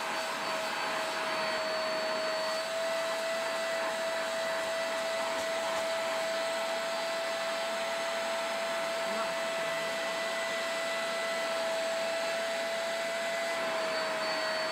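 Vax Spotwash carpet and upholstery spot cleaner running, its suction motor giving a steady drone with a high whine as the hand tool draws the cleaning solution back out of the sofa fabric.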